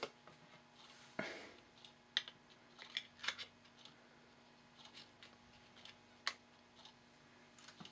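Faint, scattered light clicks and taps of small parts being handled: the brass back strap and wooden grip of an 1851 Navy cap-and-ball revolver being fitted back onto its frame.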